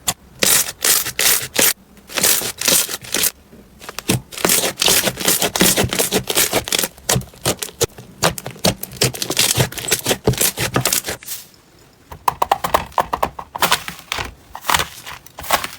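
Slime being squeezed, poked and stretched by hand, giving dense crackling and popping clicks, with a short lull about twelve seconds in before the crackling resumes.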